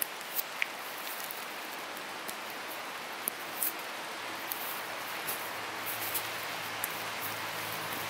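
Steady rain falling through the forest, an even hiss with scattered sharp ticks of drops. A faint low hum comes in about halfway through.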